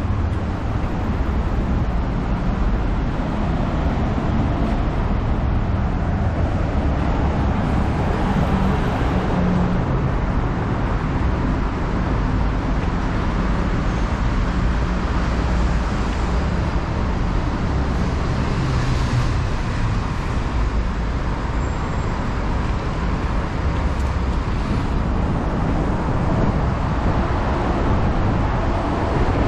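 Road traffic on a city street: a steady wash of cars and other vehicles running past, with a continuous low engine rumble.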